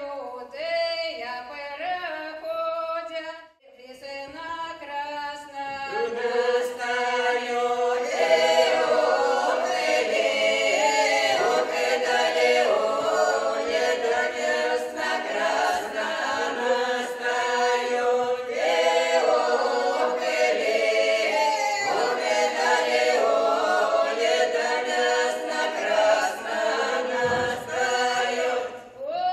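Russian folk song sung a cappella by a small mixed folk ensemble. A lead voice opens the phrase, then the whole group comes in about four seconds in and sings on together in close harmony, without instruments.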